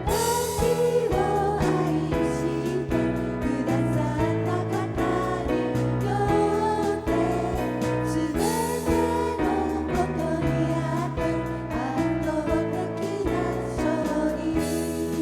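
A Christian worship song: voices singing a melody over a sustained, steady instrumental accompaniment.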